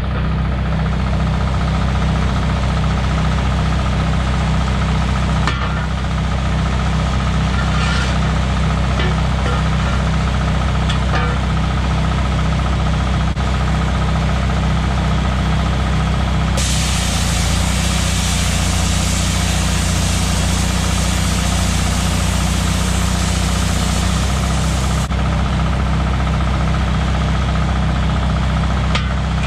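Engine-driven welder's engine idling steadily, with a few short metal clanks from steel truck wheels being handled. A steady hiss joins in for several seconds past the middle.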